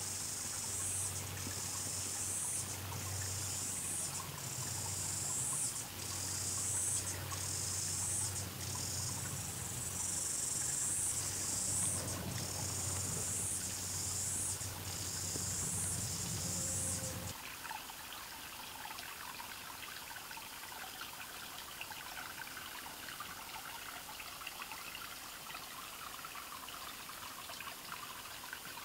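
Rhythmic, high-pitched insect chorus pulsing about once a second over a low steady hum, cutting off suddenly a little over halfway through; then a small stream trickling.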